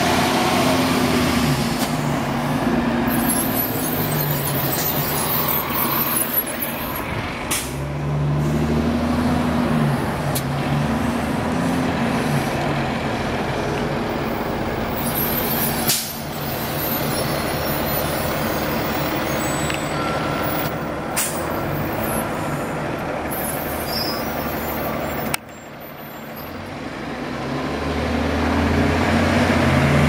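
City transit bus engines running as the buses pull away, with a few short, sharp air-brake hisses. Near the end a bus engine grows steadily louder as it approaches.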